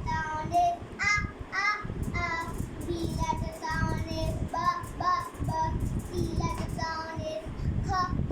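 A child singing short syllables of letter sounds, about two a second, over a low rumble.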